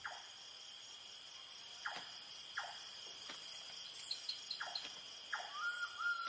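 Night insect chorus: steady, high-pitched cricket trilling, with about five short falling chirps from some other night creature scattered through it. Near the end a soft rising melody comes in over it.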